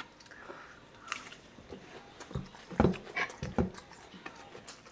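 Close-up eating sounds: chewing and smacking of mouths, with scattered small clicks and a cluster of short sharp knocks and smacks around the middle.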